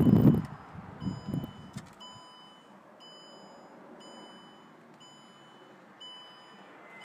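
Electronic warning beep, a short high tone repeating about once a second, with a low rumble of wind and handling noise in the first two seconds.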